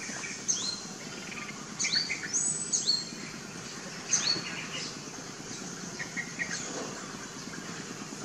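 A small bird chirping repeatedly: short high calls that each drop sharply in pitch, one every second or two, over steady outdoor background noise.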